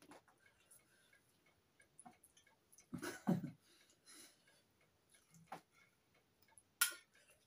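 Knife and fork clinking and scraping on a china dinner plate as food is cut, in light irregular clicks, with a louder clatter about three seconds in and a sharp click near the end.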